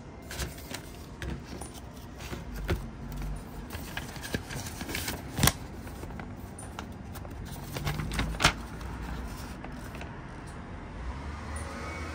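Hands handling a frozen pizza's plastic packaging and a paper instruction leaflet: rustling and crinkling with scattered clicks, and two sharper snaps about five and eight seconds in, over a steady low background noise.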